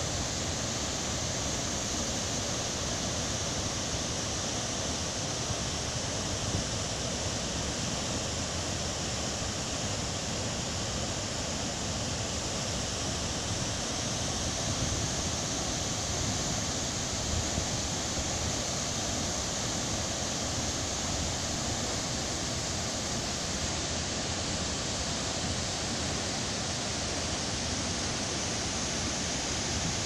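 Steady, unbroken rush of the Ouzoud waterfalls, a tall cascade pouring into its plunge pool.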